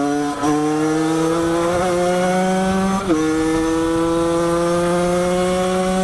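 50cc two-stroke AM6 engine with a Doppler Vortex cylinder kit, ridden hard and accelerating through the gears. Its pitch climbs steadily, dropping sharply at two upshifts, about half a second and three seconds in, then climbing again.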